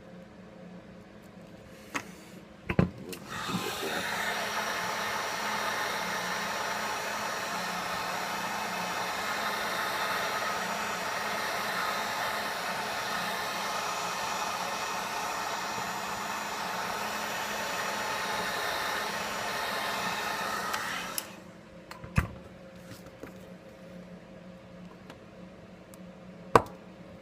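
Hot-air blower switched on about three seconds in, running steadily for about eighteen seconds and then cut off, heating a Galaxy S5's front glass to soften the screen adhesive. A sharp knock comes just before it starts, and two more come after it stops.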